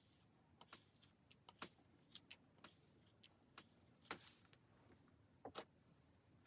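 Near silence with faint, irregular small clicks and ticks, about a dozen, the loudest about four seconds in.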